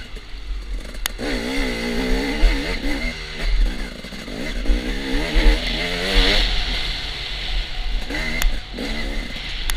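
Dirt bike engine revving up and down again and again as the rider accelerates and backs off along a trail, with a few sharp knocks.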